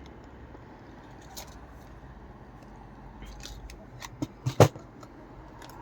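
Quiet handling noise, then a few sharp clicks and knocks a little past four seconds in: a USB keyboard plug being pushed into a port.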